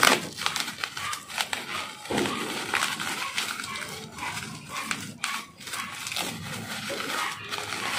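Plastic bubble wrap crinkling and rustling as it is pulled and unwrapped by hand, a dense crackle of small clicks.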